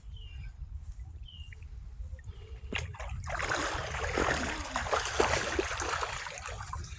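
Floodwater splashing and sloshing as a person wades through it, starting about three seconds in and carrying on as a continuous run of splashes.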